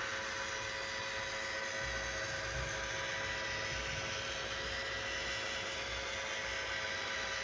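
Roomba i4+ EVO robot vacuum running: a steady whir with a high-pitched whine.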